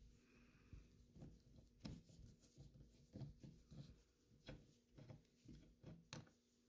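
Faint, irregular clicks and scrapes of a screwdriver turning out a wood screw from the brass butt plate of a Lee-Enfield SMLE Mk III* rifle stock.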